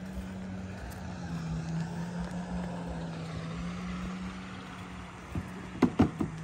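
Toyota SUV's engine running steadily at low revs as the vehicle creeps down a ramp. A few sharp knocks come close together near the end.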